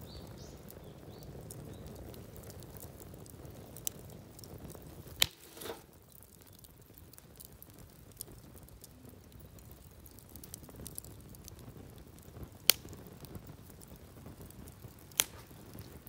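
Split firewood burning in a barbecue grill's firebox: a low, steady rush of flame with crackling and three loud, sharp pops spaced several seconds apart.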